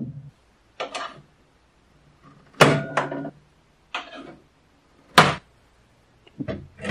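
Wooden table parts and a spoked wheel being handled and set against each other: a series of separate knocks and clunks, about one a second, the loudest a little over two and a half seconds in with a short ring.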